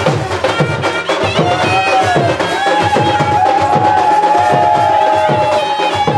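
Traditional-style music with fast hand-drum strokes whose pitch bends downward, and a long held melody note coming in a little under halfway through.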